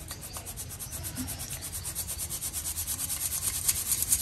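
A hand-held steel mesh sieve shaken back and forth in quick, even strokes, powdered sugar (bura) rasping through the mesh onto a steel plate. The shaking grows louder toward the end.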